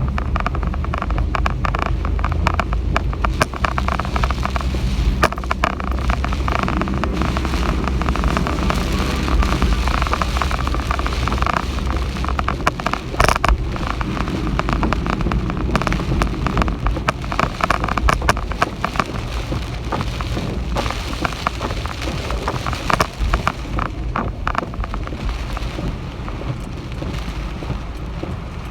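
Typhoon rain and wind: a steady rush of heavy rain with dense crackling drops, over a low rumble of wind buffeting the microphone that eases off about halfway through.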